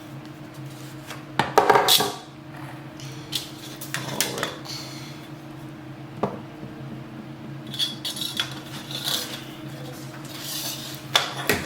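Scattered clinks, knocks and rattles of metal clamps and tools being handled against PVC pipe during assembly, the loudest cluster about one and a half to two seconds in, over a steady low hum.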